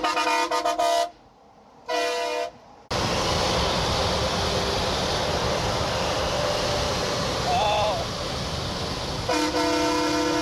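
Train horns fitted to a vehicle sounding a chord of several tones: a quick run of short toots in the first second, a short blast about two seconds in, and another blast near the end. A loud, steady rushing noise fills the stretch between.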